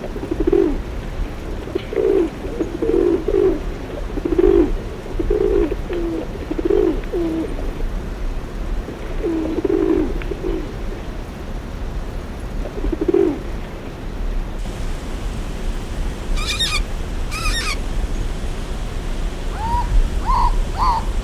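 A bird cooing in short low phrases, repeated again and again for about thirteen seconds. After a change of recording come two brief high calls and then a run of quick, evenly spaced higher notes near the end.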